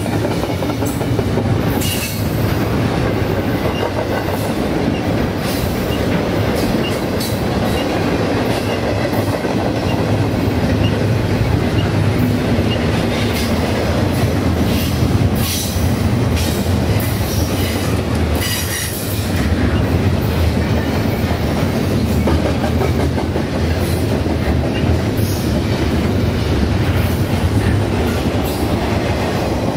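Double-stack container freight train rolling past close by: a steady, loud rumble of wheels on rail, with sharp clacks scattered through it.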